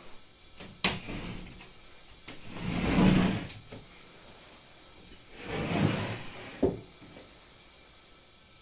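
Sliding wooden door pushed open along its wooden track in two long slides, with a sharp tap as it starts and a short knock after the second slide.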